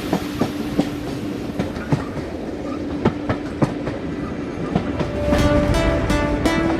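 Diesel-hauled heritage train running along the track, its wheels clicking over the rail joints in an uneven beat over a steady rumble. About five seconds in, a pitched tone with overtones joins in.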